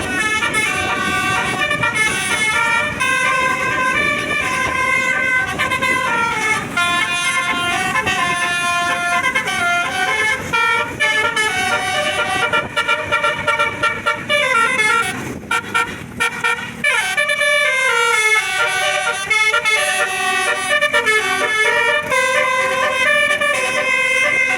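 Tour bus telolet horn playing a long run of tunes: several horn tones switching pitch in quick steps, with falling glides about fifteen seconds in.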